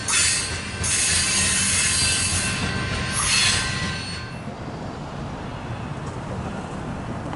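Double-stack container train rolling past: steel wheels on the rail hiss and squeal with thin high whining tones, then about four seconds in the sound drops to a quieter low rumble.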